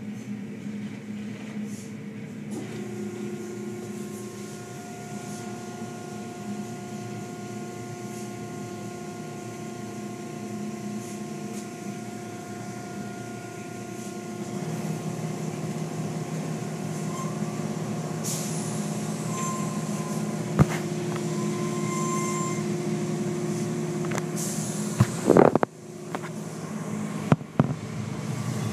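Automatic tunnel car wash heard from inside a car: a steady machinery hum with hissing water spray, the hum changing pitch twice as different stages take over. A few sharp knocks come near the end.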